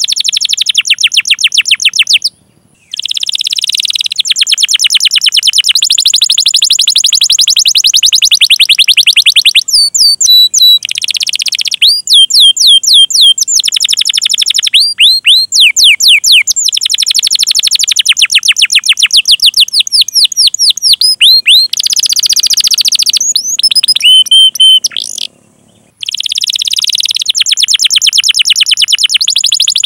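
Domestic canary singing long rolling trills of fast repeated high chirps, mixed with slower sweeping 'cuit cuit' notes, broken by two short silences, about 2.5 seconds in and near 25 seconds.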